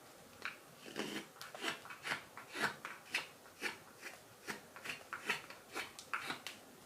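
Carving knife paring thin shavings from a wild cherry wood spoon, a series of short slicing strokes, about two or three a second and uneven in strength.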